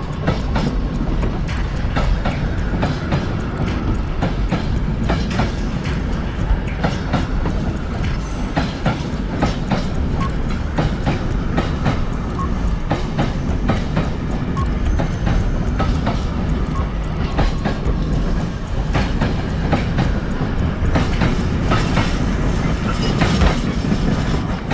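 Moving train running: a steady low rumble with wheels clicking over the rails.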